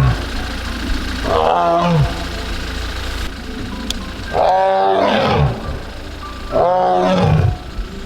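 A tiger calling again and again, each loud call about a second long and falling in pitch, three full calls with a short pause between each. This is the tiger crying out that the title describes.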